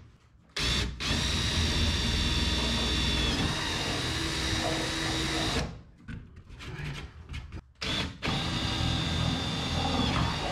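Cordless drill boring holes through a plywood panel, running in two spells with a steady whine. The first lasts about five seconds and the second starts near the end, with a few light knocks between them.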